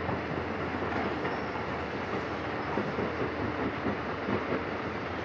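Tata Hitachi excavator at work, its diesel engine and machinery running steadily with small knocks here and there.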